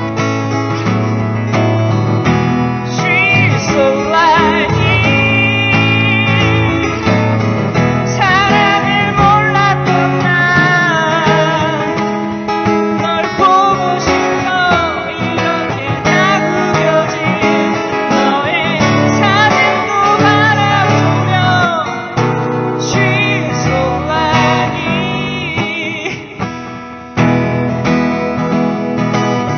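Live music: acoustic guitar strumming chords, with a wavering melody line with vibrato carried over the top.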